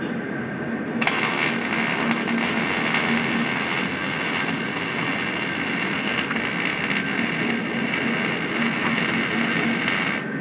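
MIG welding arc on steel, a steady crackling hiss that starts suddenly about a second in and cuts off near the end as the trigger is released.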